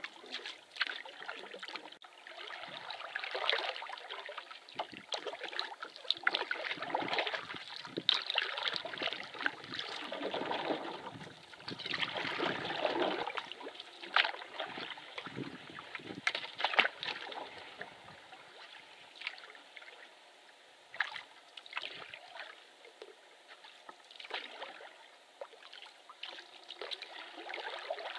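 Canoe paddling: water splashing and trickling off the paddle in irregular swells, with a few small knocks, quieter in the last third.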